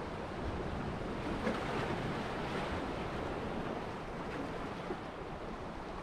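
Sea surf and tidal water washing over and between rocks: a steady rushing noise that swells a little in the first few seconds.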